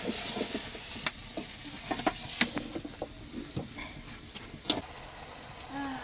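A spoon stirring a pot of matoke, clinking and knocking against the pot over a steady sizzle. The sharpest knocks come about a second in, about two and a half seconds in and near the end.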